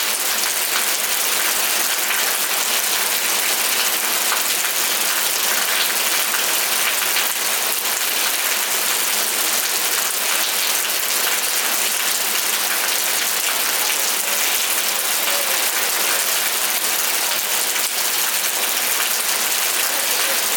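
Steady rainfall: a dense patter of drops over an even hiss, unchanging throughout.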